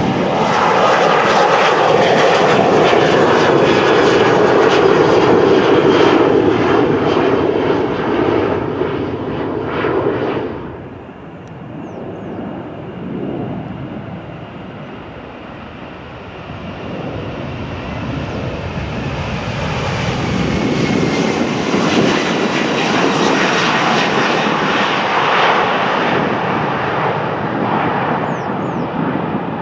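Boeing 737-800 jet airliner taking off, loud jet engine noise that cuts off abruptly about ten seconds in. A Boeing 767-300 then takes off, its jet engine noise building to loud over the last ten seconds or so.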